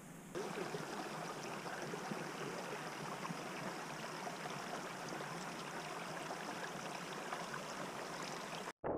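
A small hill burn running over rocks: a steady rush of water that starts just after the opening and drops out briefly near the end.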